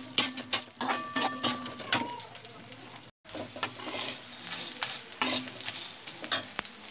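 A perforated steel skimmer scraping and clinking against a steel kadhai as gond (edible gum) is stirred while it sizzles in hot ghee. The sound cuts out for a moment about three seconds in.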